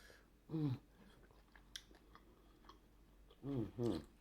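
A person chewing a mouthful of king crab meat dipped in sauce, close to the microphone, with small wet clicks of chewing. Three short hummed "mm"s of enjoyment fall in pitch, one about half a second in and two close together near the end.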